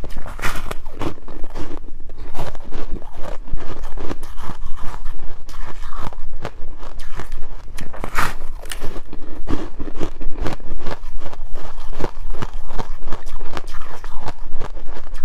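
Close-miked crunching of ice being bitten and chewed, a dense run of crackling crunches with no pause.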